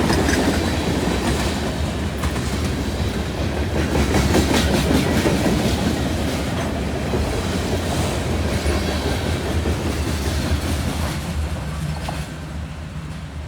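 Freight train cars rolling past, steel wheels clicking and clattering over the rails with a steady low rumble. The sound begins to fade near the end as the train moves away.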